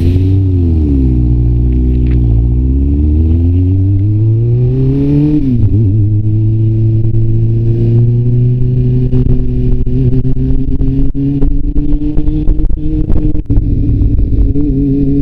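Kawasaki ZRX400's inline-four engine running under way, its pitch dipping then rising over the first five seconds, dropping sharply at a gear change about five and a half seconds in, then climbing slowly and steadily as the bike pulls. Scattered short clicks come through in the second half.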